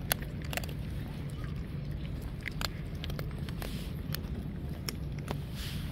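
Stray cats crunching dry kibble, heard as irregular sharp clicks, the loudest just after the start, over a steady low background rumble.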